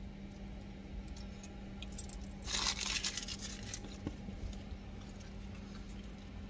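Paper food wrapper crinkling for about a second, starting a couple of seconds in, with a few lighter rustles around it, over a steady low hum.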